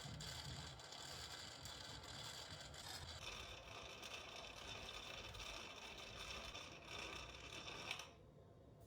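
Small electric coffee appliance running with a steady mechanical whir and high hum, its pitch shifting up about three seconds in, then switching off abruptly about eight seconds in.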